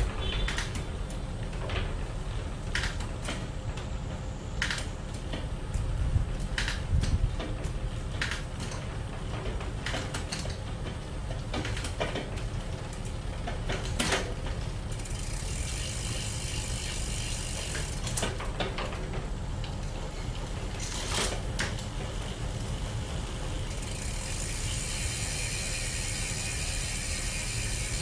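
Rear freehub of a full-suspension electric mountain bike ratcheting as the cranks or wheel are turned, with scattered sharp clicks during the first half. From about halfway through it becomes a fast, continuous ticking buzz. This is the sound of the drivetrain being turned over while the chain is oiled.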